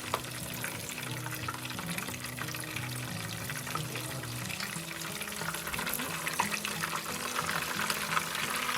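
Chicken pieces deep-frying in hot oil, a steady crackling sizzle with small pops, under soft background music.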